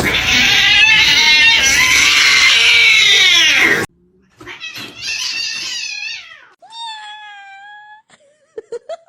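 A cat caterwauling: one loud, wavering yowl of about four seconds that cuts off abruptly, followed by two shorter, quieter cries.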